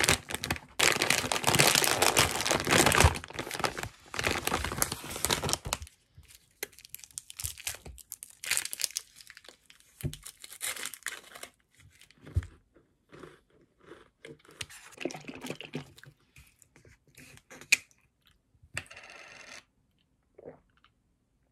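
A plastic snack bag being crinkled and torn open, loud and dense for about the first six seconds. After that come softer, scattered rustles and crunches as the crisp multigrain snack is taken out and eaten.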